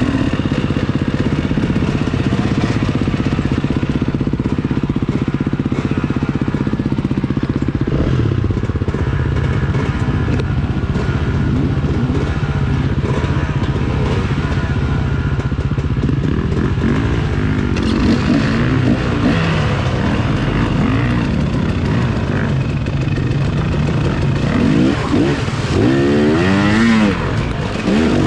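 KTM 300 two-stroke enduro dirt bike engine, running steadily at low revs, then revved up and down over and over as the bike works through mud and rocks.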